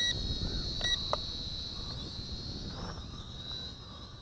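Bolon K901 toy quadcopter's motors and propellers whining steadily at a high pitch, growing fainter near the end, with wind rumbling on the microphone. Two short electronic beeps, one ending just at the start and another about a second in: the two-beep signal for headless mode.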